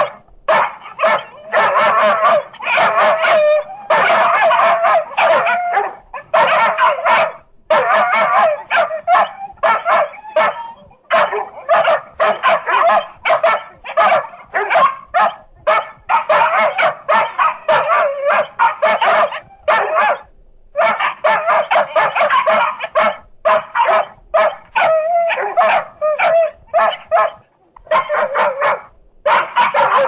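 A dog barking and yipping in rapid runs of short barks, with brief pauses between the runs.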